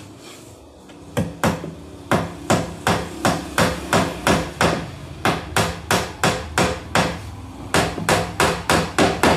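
A hammer driving a nail into the bottom of a wooden shelf: a run of sharp blows, about three a second, starting about a second in, with a short pause near the end before a few more.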